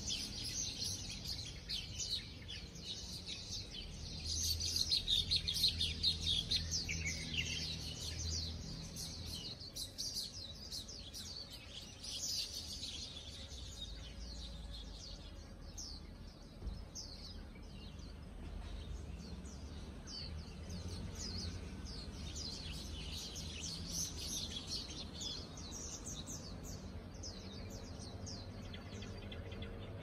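Many small birds chirping and twittering together, busiest in the first half and again near the end, over a low steady rumble.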